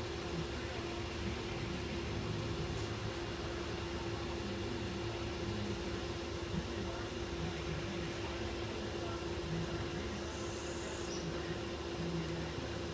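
Steady machine hum with a constant low tone, like a fan or air-conditioning unit running.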